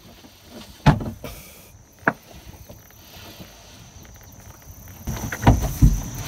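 Knocks and thumps of an old boat steering cable being handled and pulled through a fibreglass locker: a sharp knock about a second in and another about two seconds in, then several heavier thumps near the end.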